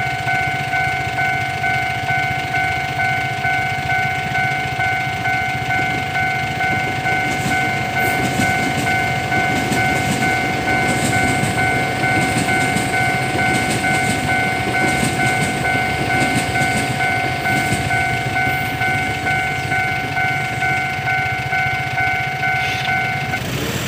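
Railway level crossing warning bell ringing with a repeating electronic ding, while a train passes through in the middle with its wheels clattering over the rail joints. The bell stops shortly before the end.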